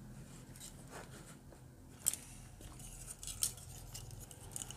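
Plastic computer cooling fans being handled and set down on a cutting mat: a few light clicks and taps, with two sharper clicks about two and three and a half seconds in.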